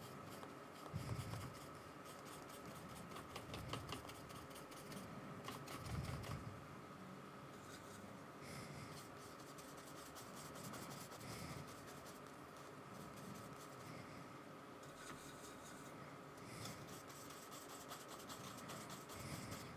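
Faint, irregular scratching and dabbing of a paintbrush's bristles stippling acrylic paint onto a kraft-paper sketchbook page, with a few soft low thumps.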